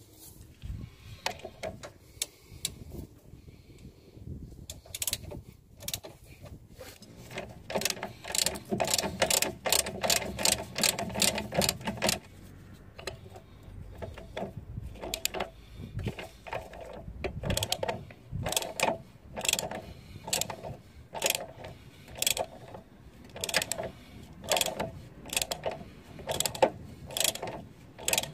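Ratchet wrench and socket clicking as it turns a brake caliper bolt, its pawl ratcheting in quick runs of clicks on each return stroke, settling into a steady rhythm of about one run a second in the second half.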